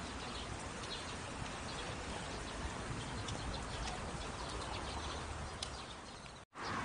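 Outdoor ambience with faint bird chirps over a steady low rumble; it cuts out abruptly near the end.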